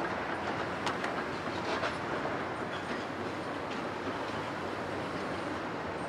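Caterpillar 320E tracked excavator running as it swings and lowers its boom and bucket: a steady diesel-engine and hydraulic drone, with a few short metallic clanks about a second and two seconds in.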